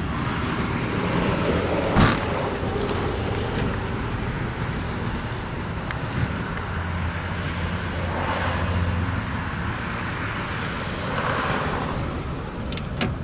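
Trunk lid of a BMW E46 sedan slammed shut with one loud thump about two seconds in, over steady outdoor traffic and wind noise. A low hum rises for a few seconds in the middle, and there are a few light clicks near the end.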